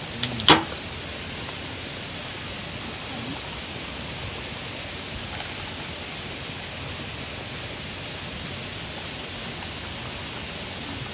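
A tall aluminium beer can cracked open by its pull-tab: sharp clicks and a pop with a short hiss about half a second in. After that only a steady, even hiss.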